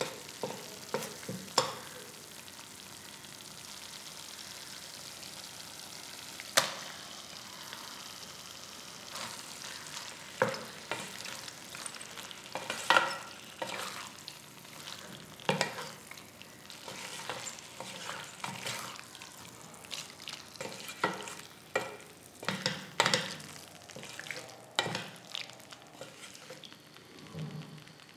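Prawns and green cafreal masala sizzling in a stainless steel pan, stirred with a wooden spatula that scrapes and knocks against the pan. The knocks are scattered at first, with one loud one about six seconds in, and come thick and fast through the second half.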